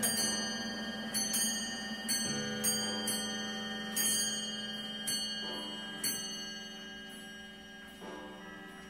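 Several mechanical clocks striking and chiming at once, a dozen or so overlapping struck notes whose ringing tones hang on and build together. The strikes thin out after about six seconds and the ringing slowly fades.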